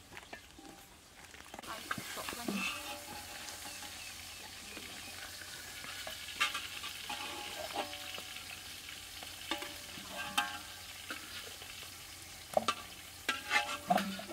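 Fish frying in oil in a wide metal wok, sizzling steadily from about two seconds in. A metal spatula scrapes and clinks against the wok now and then, most often near the end.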